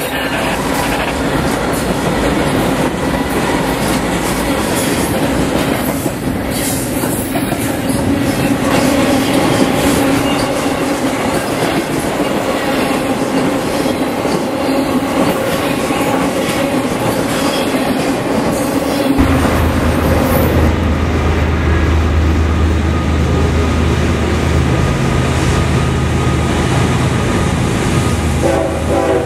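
A BNSF intermodal freight train rolling past at close range, its wheels and cars making a loud, steady rush. About two-thirds of the way in, a deep steady diesel locomotive drone takes over as another freight train approaches.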